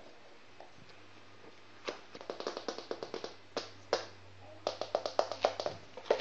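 Shih Tzu puppy's claws clicking and scrabbling on a hard wood-effect floor as it moves about, in quick runs of taps starting about two seconds in.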